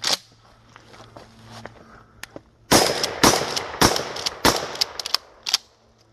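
Pump-action shotgun firing four shots in quick succession, each a sharp crack with a ringing tail. Smaller clicks of the gun's action come before and after the shots.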